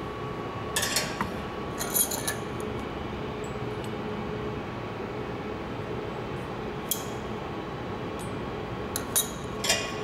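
Metal clinks and taps as a gas welding torch and a hand tool are handled against each other and the bench. They come in small clusters, about a second in, at two seconds, near seven seconds and twice near the end, over a steady low hiss and hum.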